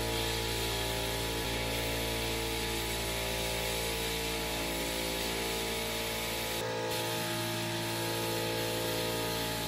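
Sandblasting cabinet nozzle hissing steadily as abrasive is blasted at small grinder parts to strip their paint, with background music underneath. There is a short break in the hiss about two-thirds of the way through.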